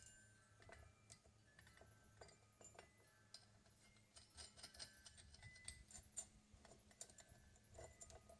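Faint metallic clicks and clinks of washers and bolts being handled while a flywheel puller is fitted, scattered irregularly over a faint steady low hum.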